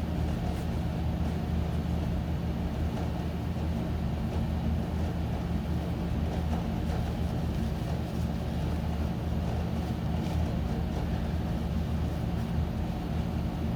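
A steady low droning hum, like a running machine, that holds unchanged throughout.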